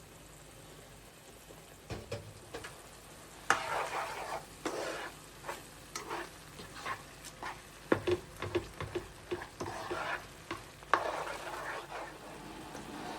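Cooking utensil stirring and scraping in a pan, with irregular knocks against it; the sharpest clanks come about three and a half, eight and eleven seconds in.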